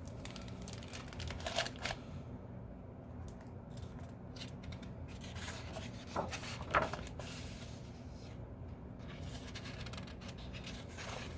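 Faint paper rustling and page handling as a picture book is opened and its pages turned, a few short scrapes over a low steady hum.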